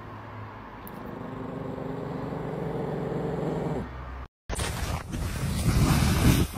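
Yorkshire terrier growling, a low rumble that builds steadily louder over about three seconds and then cuts off. After a short break comes a rougher, noisier sound.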